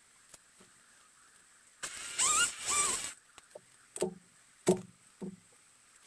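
Chainsaw engine running in two short loud bursts with a wavering pitch, followed by three short knocks.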